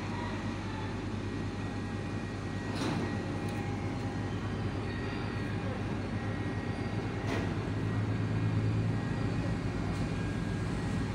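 Ship's engine running with a steady low drone, which grows louder about eight seconds in. Two short sharp knocks sound, about three and seven seconds in.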